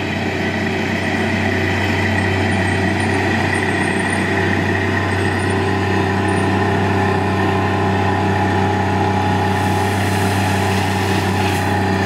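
Engine of a compact tracked mini loader running steadily as the machine drives up with a loaded bucket of gravel; a second steady tone joins in about halfway through.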